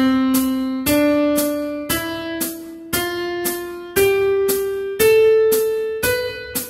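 Piano playing a slow rising C major scale, one note about every second, climbing step by step from middle C. A metronome clicks on every beat underneath.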